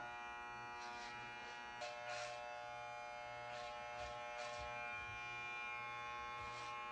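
Electric hair clippers running with a steady buzz, with a few faint brushing strokes over it.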